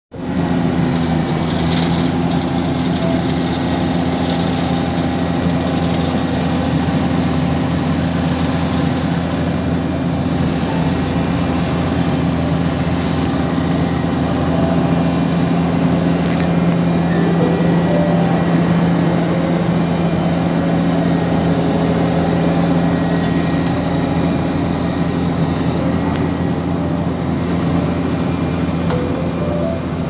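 Vögele Super 1800-3 tracked asphalt paver's diesel engine running steadily with a constant low hum.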